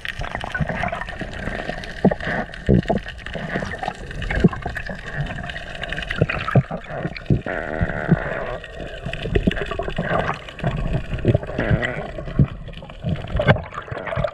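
Water gurgling and sloshing around an underwater camera, with many sharp clicks and knocks scattered through it over a faint steady hum.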